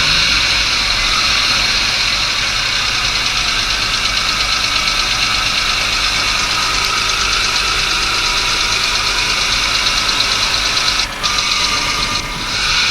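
Diesel engine running steadily with a fast metallic tapping from the valve gear. This is the sign of incorrect tappet (valve) clearance.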